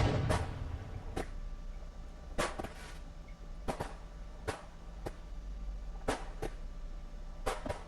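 Fireworks going off: a series of sharp cracks and pops, the loudest right at the start with a low boom trailing after it. Single cracks or close pairs follow every second or so.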